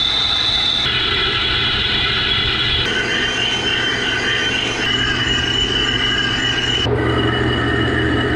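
Metal lathe turning and facing a large faceplate blank: the machine runs with a steady high-pitched whine from the cutting tool on the spinning metal, over a low hum. The sound changes abruptly every two seconds or so as one short clip cuts to the next.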